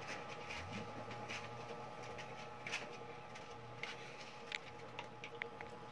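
Faint, scattered light clicks and taps of thin aluminium drink cans being handled and fitted together, over a steady faint hum.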